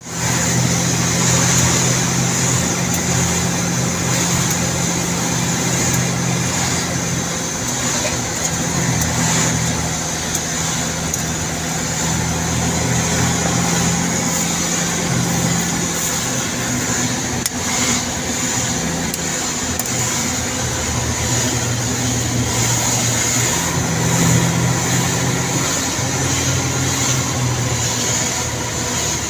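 Engine of a large vehicle running as it drives, heard from inside the cab over road noise: a low, steady drone whose pitch shifts and briefly falls away several times.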